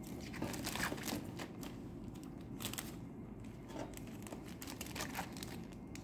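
Plastic poly mailer bag crinkling and rustling as its adhesive flap is folded over and pressed down to seal it, with irregular small crackles throughout.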